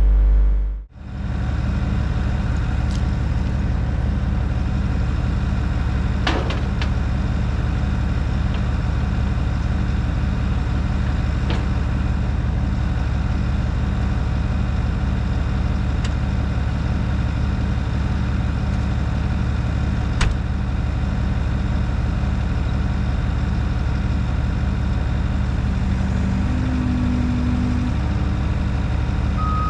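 Bobcat skid-steer's engine running steadily, with a few faint clicks. A backup alarm starts beeping right at the end.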